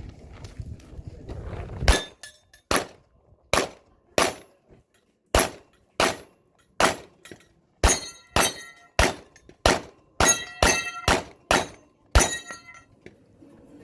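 A pistol fired in a string of about sixteen shots, one to two a second, quickening in the second half. Several shots are followed by a short metallic ring.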